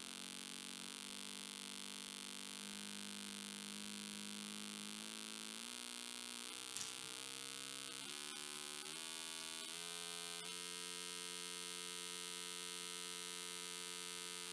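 A buzzing tone from a small speaker driven by a 555 timer running as an astable oscillator on a breadboard. Its pitch jumps in small steps several times as the potentiometer that sets the timing resistance is turned.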